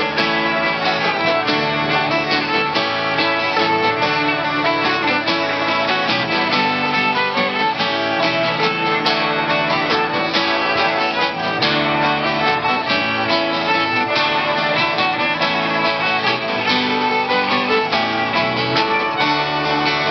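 Live folk band playing an instrumental break: fiddle and acoustic guitars, with no singing.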